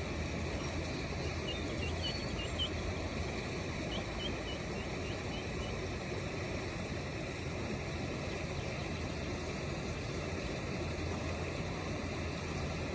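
A steady rushing noise with a low hum. Over it, a run of faint, short, high peeps from ducklings for a few seconds near the start.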